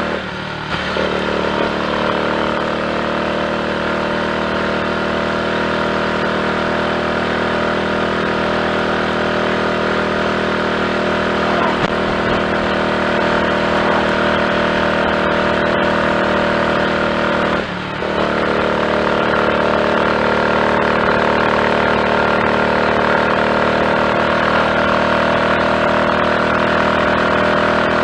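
Triumph Tiger Cub's small single-cylinder four-stroke engine running steadily under way, its note dipping briefly twice. It runs with no misfire, on a newly fitted carburettor slide, needle, needle jet and main jet.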